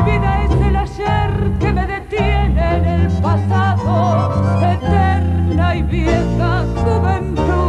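A woman singing a tango with a wavering vibrato over instrumental accompaniment with a steady bass line.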